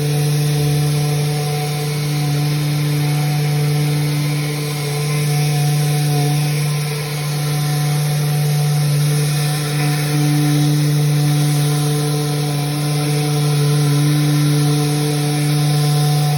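Electric power sander running steadily against a cabinet door, a constant motor hum with the rasp of the pad on the wood.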